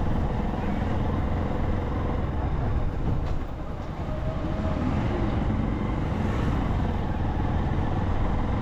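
Steady low rumble of a moving vehicle's engine and road noise, with wind buffeting the microphone.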